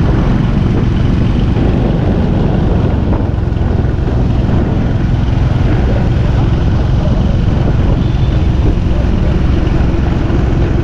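Small motorcycle riding along at a steady pace, its engine running under a loud, even rush of wind buffeting the microphone.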